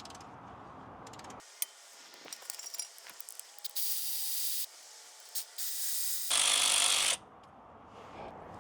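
Tools working the 13 mm bolts on a worn-out transmission mount: scattered clicks and ratcheting, then three short runs of hissing, whirring noise, the last one the loudest, near the end.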